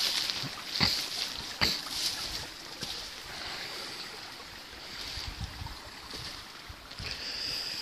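Footsteps on gravel and twigs, a few sharp crunching steps in the first two seconds and lighter ones after, over a steady hiss.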